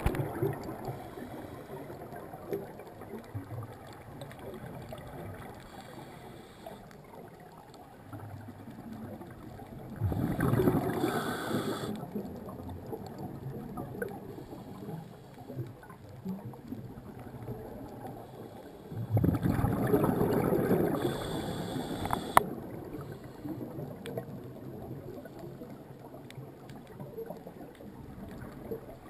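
Two bursts of a scuba diver's exhaled regulator bubbles, about ten seconds in and again just before twenty seconds, each lasting two to three seconds, heard muffled through a GoPro's underwater housing. Between them a faint steady underwater background with light ticking, and one sharp click just after the second burst.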